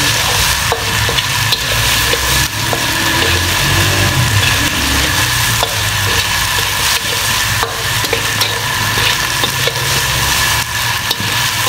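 Chicken, green capsicum and carrot strips sizzling in a hot wok as a metal spatula stirs and scrapes them, with scattered clinks of the spatula against the wok.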